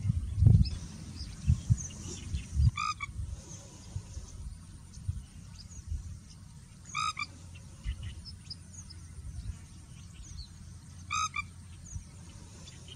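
Pheasant-tailed jacana giving a short nasal call three times, about four seconds apart, over a low rumble and faint high chirps.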